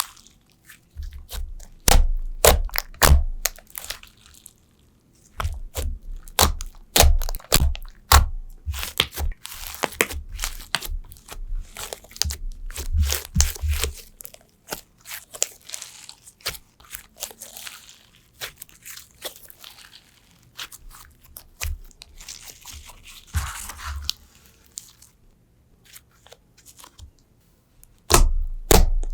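Slime being squeezed and pressed by hand, crackling and crunching in dense runs of sharp pops and clicks, with a few short quieter pauses.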